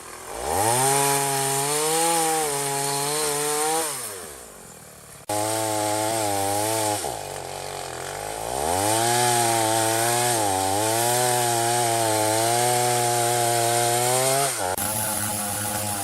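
Chainsaw revving up to full throttle and cutting, its pitch wavering under load. It drops back toward idle about four seconds in, revs again, eases off, and then makes a long cut from about nine seconds in.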